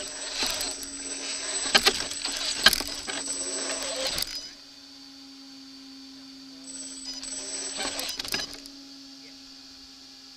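A 1/8-scale brushless RC rock crawler's motor and geared drivetrain whining as it crawls over rocks, with sharp clicks and clatter from tyres and chassis on stones. It stops about four and a half seconds in, runs again for about two seconds near the eight-second mark, and a faint steady electric hum stays under it all.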